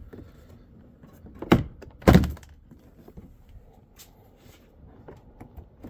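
Retaining clips of a car's plastic interior door panel popping loose as it is pried off: two sharp pops about half a second apart, the second the loudest, then a faint click a couple of seconds later.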